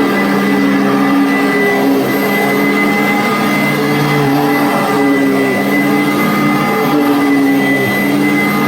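Commercial vacuum cleaner running, a loud steady motor hum with a constant high whine and lower tones that waver slightly.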